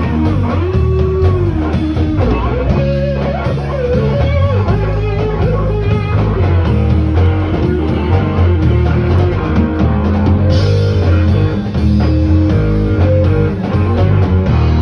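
Live rock band playing: electric guitar and drum kit, with a lead line of notes bending up and down in pitch during the first few seconds.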